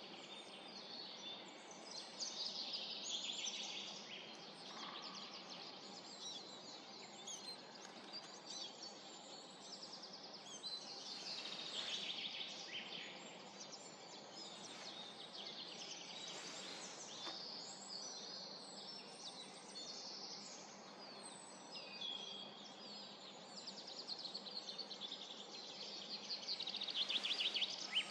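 Several songbirds singing and chirping over steady outdoor background noise, with a run of fast repeated trilled notes near the end.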